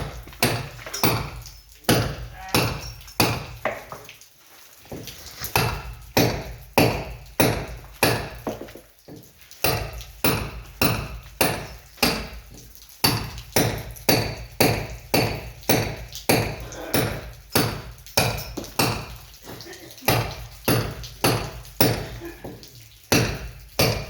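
Hammer blows struck in a steady rhythm of about two a second, with short breaks about four and nine seconds in, during masonry repair work.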